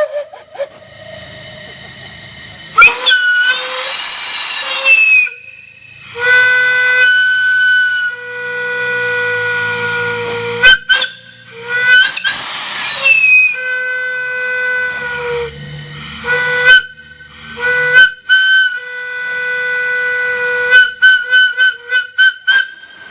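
A large whistle blown in a series of blasts at one steady pitch. Two loud blasts carry a heavy hiss of escaping steam or air, about three and twelve seconds in. Several long held notes come between them, and a quick run of short toots comes near the end.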